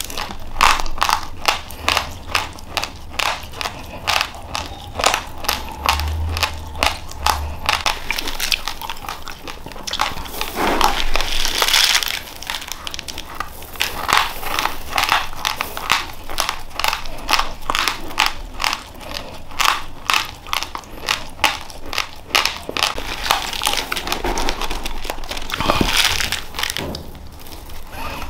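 Raw, uncooked white rice grains being chewed: a rapid, steady crunching. Twice, about ten seconds in and again near the end, there is a longer rustling as another handful of grains is scooped from the plastic sack.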